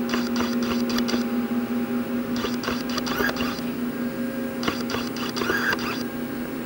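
Powered-on Haas SL-30T CNC lathe humming steadily, with a higher hissing, clicking sound that comes on for about a second roughly every two seconds.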